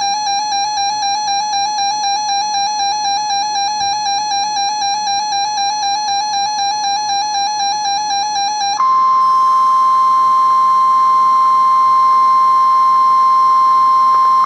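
Weather radio emergency alert tones: a pulsing electronic alarm tone with overtones for about nine seconds, then an abrupt switch to a louder, steady, slightly higher single tone, the NOAA Weather Radio warning alarm tone, which precedes a severe thunderstorm watch.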